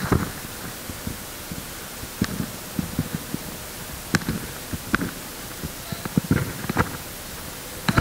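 Steady hiss of background noise with scattered sharp clicks about every second or two and softer low thumps between them.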